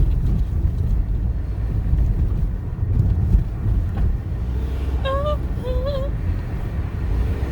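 Car driving, heard from inside the cabin: a steady low road and engine rumble. Two short wavering pitched sounds come about five seconds in.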